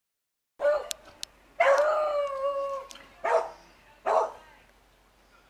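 Dog barking at a fence: a sharp bark, a long drawn-out bay held for over a second, then two more short barks.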